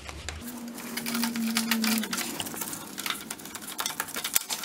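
Rapid, irregular metallic clicks and clinks of a worn roller chain and front sprocket being worked off the countershaft by hand. A steady low hum is also heard from about half a second to two seconds in.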